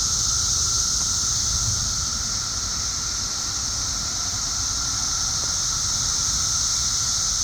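Chorus of periodical cicadas: a loud, steady, high-pitched drone with a fainter, lower steady tone beneath it, over a low rumble.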